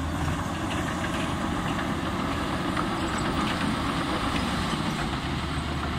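Komatsu D85E-SS crawler bulldozer's diesel engine running steadily as the dozer backs away across the ground, with faint clanking from its steel tracks.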